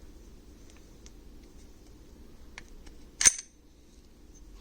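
Kahr P45 pistol being dry-fired: a few faint clicks of the trigger being worked, then one sharp click a little over three seconds in as the long trigger pull breaks.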